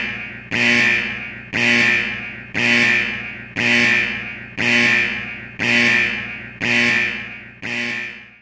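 A ringing tone struck again about once a second, each one starting sharply and fading before the next, stopping about eight and a half seconds in.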